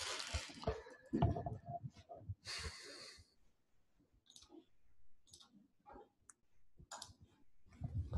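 Faint breathing close to a microphone, with two longer breaths in the first few seconds, followed by a scatter of soft, short clicks.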